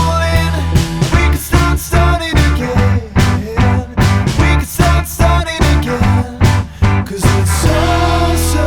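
Rock music: a steady drum beat over guitar, the drums dropping out near the end to leave held chords.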